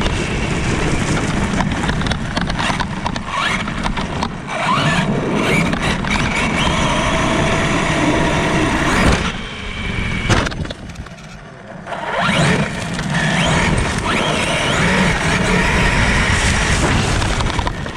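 Traxxas Sledge RC monster truck driving across a grass and dirt yard on a 4S battery: its brushless motor and drivetrain whine, rising and falling with the throttle, over the rush of the tyres. It eases off and goes quieter for a couple of seconds a little past the middle, then picks up again.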